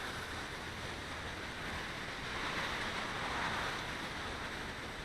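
Strong, gusty wind rushing over the microphone, a steady rushing noise that swells a little midway.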